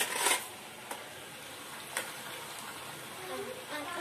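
Metal spoon clattering against a steel pot as sweet potato slices are scooped out, with a couple of light taps later. Underneath is a steady sizzle of sweet potatoes frying in oil.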